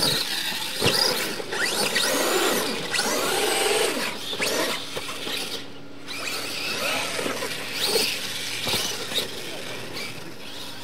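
Electric R/C monster trucks racing, their motors whining with the pitch repeatedly rising and falling as they accelerate and brake.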